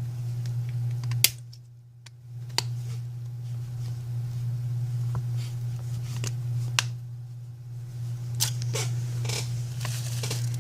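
About half a dozen small, sharp clicks and taps from handling repair tools and phone parts while reassembling an iPhone 5c, over a steady low hum.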